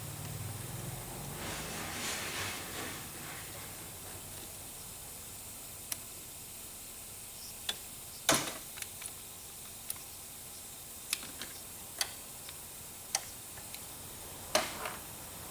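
Hand tools and small metal parts clicking and tapping as fuel-system parts are worked apart, with a soft rustle in the first few seconds. The clicks are scattered and irregular, the sharpest a little past halfway and another near the end.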